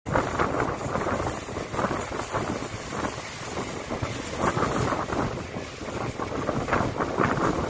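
Passenger trains running at speed, a steady rumbling clatter with wind buffeting the microphone.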